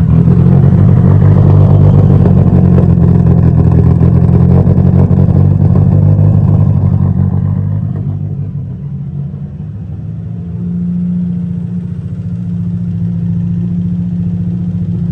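Turbocharged engine of a Nissan S13 running at raised revs, then dropping back about eight seconds in and settling to a steadier, quieter idle.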